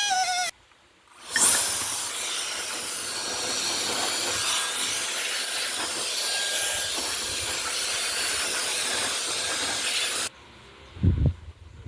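Mini wood lathe spinning a workpiece while it is scraped, a steady loud hissing scrape of wood that starts about a second in and cuts off suddenly, followed near the end by a short low thump.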